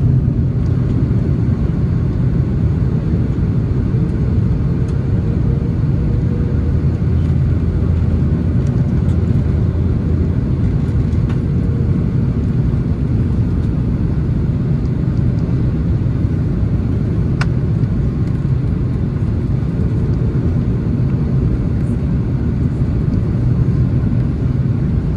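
Cabin noise of an Airbus A330 airliner on final approach: a steady, deep rumble of engines and airflow.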